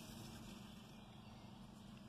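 Near silence: faint steady background noise with a low hum.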